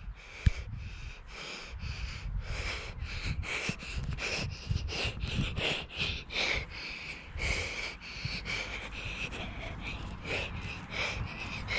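A child panting hard in quick rhythmic breaths while running, about three breaths a second close to the microphone, over a low rumble.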